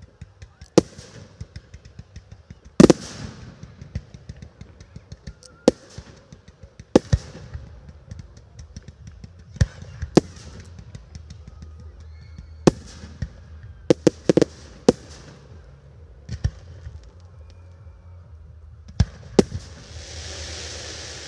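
Aerial fireworks shells bursting: about a dozen sharp bangs at uneven intervals, the loudest about three seconds in, with crackling between them. A steady hiss starts near the end.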